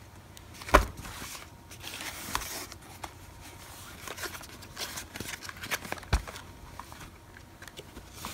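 Cardboard packaging being handled and opened: soft scraping and rustling of the inner box, with sharp knocks about a second in and again later.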